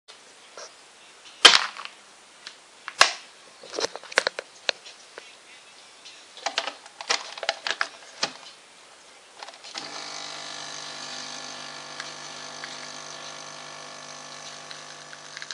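Sharp clicks and knocks as the plastic capsule holder of a Nescafé Dolce Gusto capsule machine is handled and fitted in place. About ten seconds in, the machine's pump starts and runs with a steady hum while it brews into the cup.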